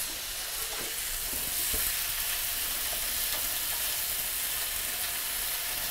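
Sourdough bread chunks steadily sizzling as they toast in olive oil on a preheated grill pan, with a few light taps in the first couple of seconds.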